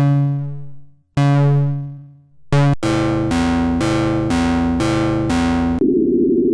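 Synthesized EAS-style alarm tones: two long keyboard-like notes that ring out and fade about a second apart, a short hit, then a quick alternating two-note pattern. Near the end this gives way to a steady, buzzy siren tone.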